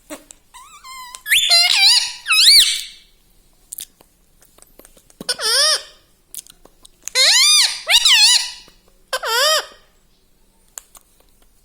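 Pet Indian ringneck parakeet giving shrill, warbling squawks in about four bursts, the pitch wobbling up and down within each call.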